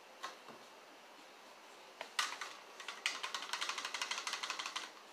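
Plastic palm-oil bottle being handled: a faint click, a sharper clatter about two seconds in, then a rapid crackling rattle of about a dozen clicks a second for about two seconds.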